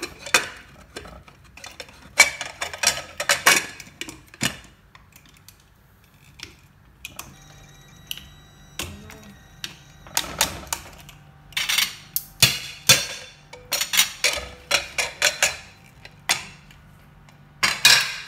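Sharp metallic clicks and clanks from an aluminium pressure cooker's lid and handles being fitted and worked, in irregular clusters of knocks with a quieter pause partway through.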